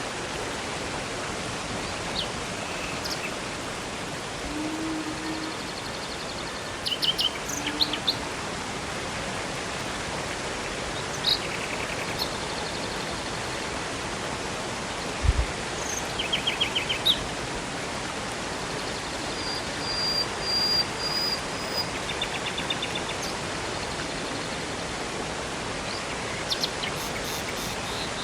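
Steady rush of river water with songbirds calling over it: clusters of sharp chirps about 7 s and 16 s in and a held whistled note around 20 s. A single dull thump about 15 s in.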